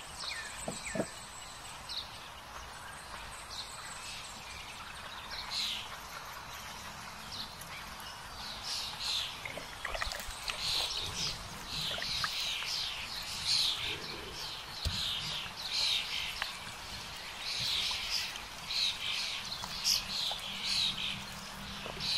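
Woodland birds singing: many short, falling chirps repeating about twice a second, thicker in the second half, over a steady background hiss of forest air.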